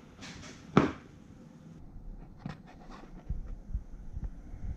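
Handling noise: a sharp click just under a second in, then a few light plastic ticks and several low thumps as a blister-carded enamel pin set is held up close.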